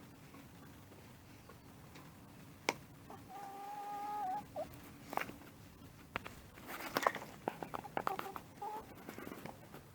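Chickens clucking in a coop, with one drawn-out call of about a second a little past three seconds in. A single sharp tap comes just before the call, and a cluster of quick sharp clicks and taps follows in the second half.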